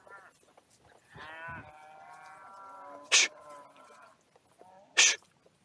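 A cow mooing: one long call starting about a second in and lasting about three seconds. Two loud, short blasts of breath, under two seconds apart, come from the ridden horse snorting.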